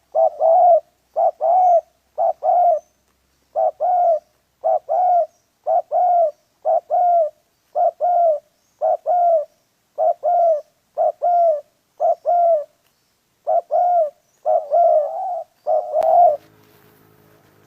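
Dove cooing over and over, typical of a spotted dove: short, slightly falling coos in groups of two or three, about one group a second. The cooing stops about 16 seconds in, leaving a faint low hum.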